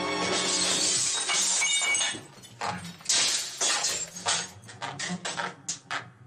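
Film score music fades out over the first two seconds. About ten sharp, irregular breaking and smashing noises follow as a house is vandalised.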